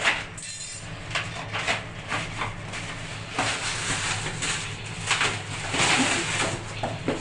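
Irregular scraping, rubbing and knocking as shower enclosure parts are handled and fitted, over a steady low hum.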